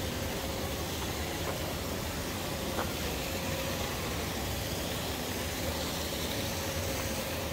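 Steady rushing of water falling in a sculpture fountain, with a low rumble underneath and a faint hum that comes and goes.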